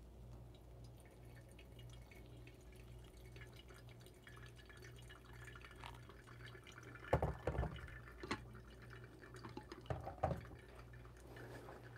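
Hot water poured in a thin stream from a gooseneck kettle into a pour-over coffee dripper, trickling and dripping. A few sharp knocks of the kettle and brewing gear on the table come after about seven seconds and again near the end.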